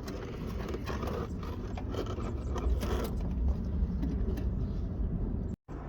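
Wire and a wire-fishing tool scraping and clicking as they are worked through the firewall, over a steady low rumble. The sound drops out briefly near the end.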